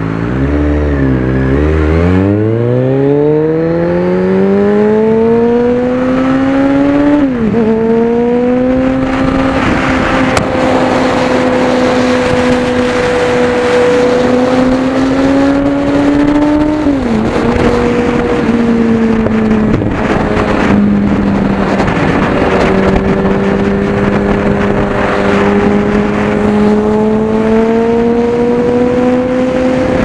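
Kawasaki Z1000R inline-four with KalKal exhaust pipes, heard onboard at highway speed: the engine revs up hard, drops in pitch at two upshifts, then cruises with the pitch slowly climbing. Steady wind rush runs underneath.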